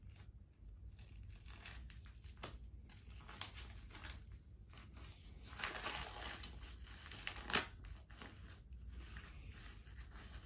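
Crinkling and rustling of small toy packaging and doll clothes being handled by hand, in irregular bursts, loudest about six seconds in, with a sharp click about seven and a half seconds in.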